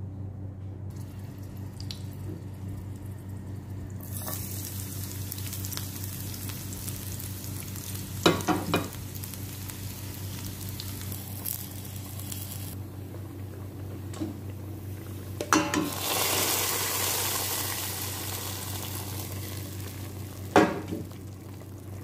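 Sliced garlic sizzling as it fries in hot oil in a nonstick pan, stirred with a spatula, with a few sharp knocks of the spatula against the pan. The sizzle starts about four seconds in and grows louder later on.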